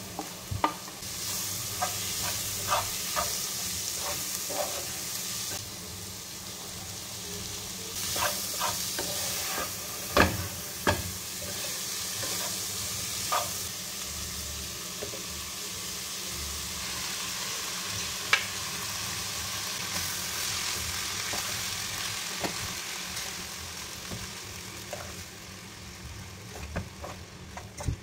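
Diced vegetables and instant noodles sizzling in a hot pot as they are stirred and tossed, the hiss swelling and easing in stretches. Metal spoon and fork clink and scrape against the pot and a steel plate now and then, loudest about ten seconds in.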